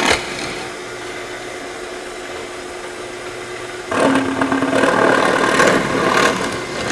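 Drill press motor running steadily. About four seconds in its bit bores into plywood for a couple of seconds, louder with cutting noise, then eases back to the free-running hum.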